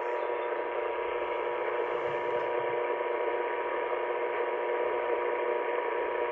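Emergency Alert System attention tone, a steady electronic tone, heard through heavy static and hiss on a weak, long-distance AM radio signal.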